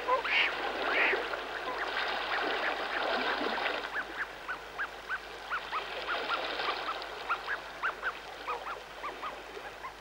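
Water birds calling: many short calls, each rising and then falling in pitch. They come thick over a denser chorus for the first few seconds, then thin out to a steady string of a few calls a second.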